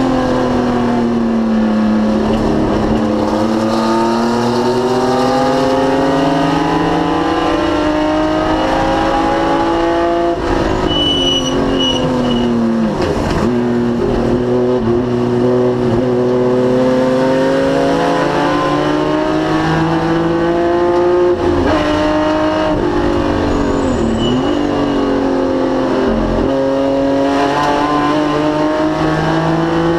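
Racing BMW CSL straight-six at full race pace, its pitch climbing as it accelerates through the gears and dropping sharply several times as it brakes and shifts down.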